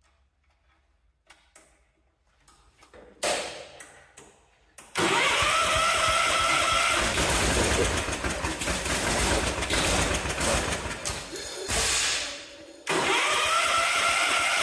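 Cub Cadet 1650 garden tractor engine being started: after a few faint clicks it cranks briefly about 3 s in, then catches about 5 s in and runs loud and steady. Near 12 s it dies away, and about a second later it starts again and runs.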